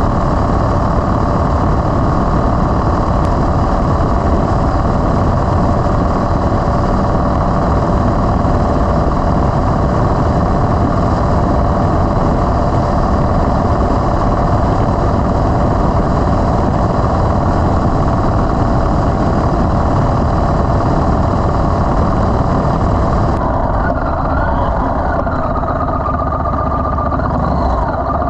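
Yamaha Road Star XV1600's air-cooled V-twin engine running steadily. About 23 seconds in, its pitch starts to waver up and down.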